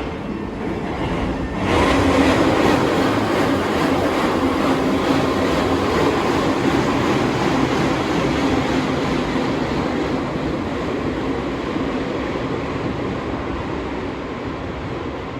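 SMRT C151 metro train (GTO chopper traction) running with a loud, harsh mechanical noise under a steady low tone. The noise is abnormal: the uploader calls it horrible and does not know its cause. It jumps louder about a second and a half in, then slowly fades.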